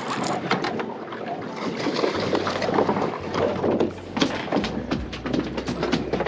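Wind on the microphone, with irregular clicks and knocks from a conventional fishing reel being handled and cranked. A steady low hum comes in about two seconds in.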